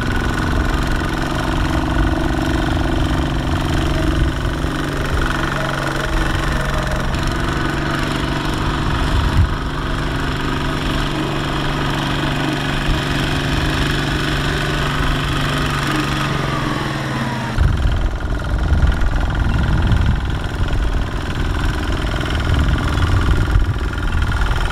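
Single-cylinder diesel engines of two-wheel walking tractors running under load as they pull loaded trailers through mud and water. The steady engine note slides down in pitch about two-thirds of the way through, and the sound then turns rougher and lower.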